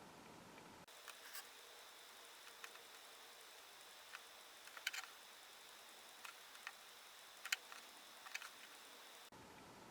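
Near silence: faint room hiss with a thin steady high whine, broken by a scattered handful of light clicks and taps, two slightly louder ones about five and seven and a half seconds in.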